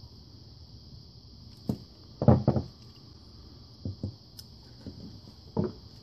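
Screwdriver and plastic twist-lock plug being handled while the wire clamp screw is worked: a few short knocks and clatters, the loudest a quick cluster a little past two seconds in, over a steady high hiss.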